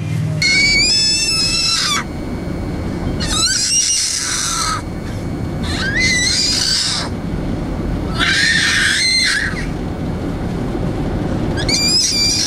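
A small child squealing in about five high-pitched bursts, a second or so each, with the pitch sliding up and down, over a steady low rumble.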